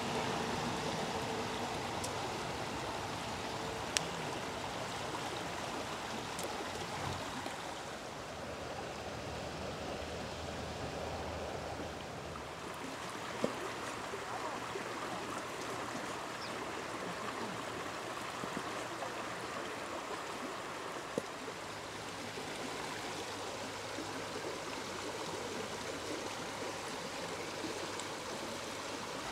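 A shallow stream running over stones: a steady rush of water. It is broken three or four times by a short sharp knock of a cleaver on a wooden cutting board.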